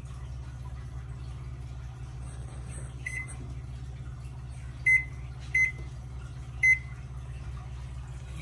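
Samsung oven's touch control panel beeping as its keys are pressed to set a 12-minute timer: four short high beeps, the first faint about three seconds in and three more over the next few seconds, over a steady low hum.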